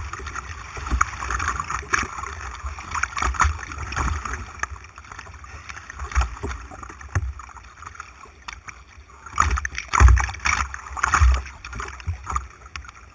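Rushing white water and paddle splashes around a kayak, picked up close by a camera mounted on the boat. Two louder splashes with heavy thuds on the microphone come near the end.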